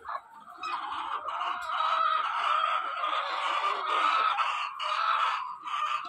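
A large flock of white layer hens clucking and calling together, many voices overlapping into a dense, steady chatter that builds up about half a second in.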